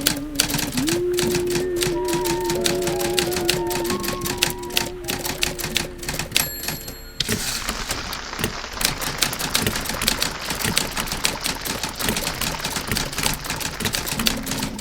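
Typewriter keys clacking steadily, layered over an old radio broadcast. For the first seven seconds a long held note with vibrato closes a song, with a short high ring near its end, after which a steady hiss sits under the typing.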